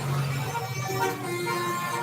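Multi-tone 'telolet' bus horn playing a short tune of changing notes, with a bus engine running underneath.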